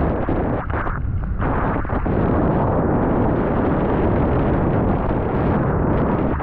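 Strong wind buffeting the microphone, a loud steady rumbling rush, with brief lulls about a second in.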